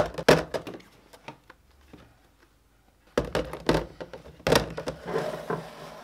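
Plastic food containers set down and stacked on a countertop, clacking: a few sharp knocks at the start, then two more clusters of knocks and clatter about three and four and a half seconds in.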